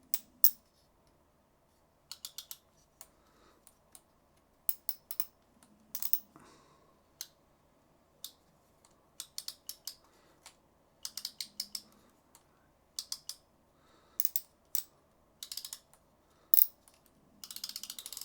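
Newly installed drag clicker on a Piscifun Alloy M baitcaster reel clicking in short irregular runs as the drag is worked, with a faster run of clicks near the end. The clicks are very clicky and louder than expected.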